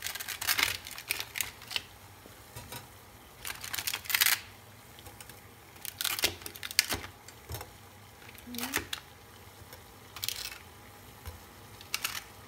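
Thin plastic dumpling tray crinkling and clicking as dumplings are pried out of its cells by hand, in about six short bursts with pauses between.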